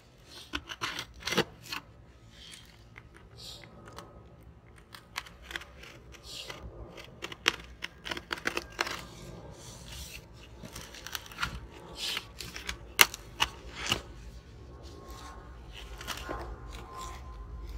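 Scissors cutting open a cardboard box: irregular snips, scrapes and crackles of cardboard.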